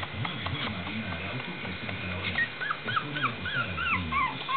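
Toy poodle puppy whimpering: a quick run of short, high-pitched squeaks, several a second, starting a little past halfway, with a low wavering sound underneath for most of the time.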